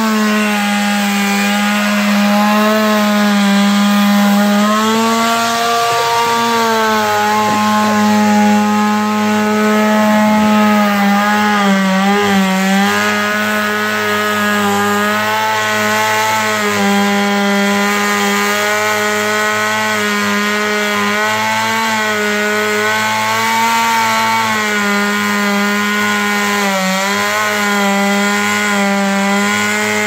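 Gas chainsaw running at full throttle while cutting into a tree trunk. The engine's pitch dips briefly a few times as the chain bites under load.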